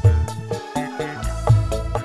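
Dangdut music played loud through a mixing desk: a deep bass line under pitched melody instruments, with sharp drum hits several times a second.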